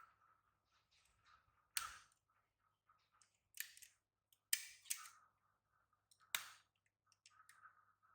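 Near silence broken by a few sharp clicks and short rustling noises, four or five in all.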